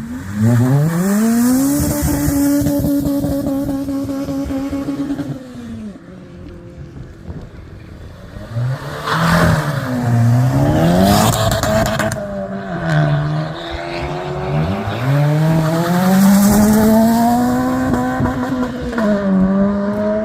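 Honda engines revving hard as the cars pull away. The pitch climbs steeply and holds high for several seconds, then drops. Several more rises and falls follow through the gears, with another long high-revving pull near the end.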